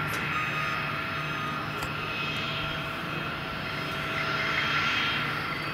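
Learjet 40XR's twin Honeywell TFE731 turbofan engines running at low taxi power: a steady jet whine, several high tones held over a rushing hiss that swells louder near the end.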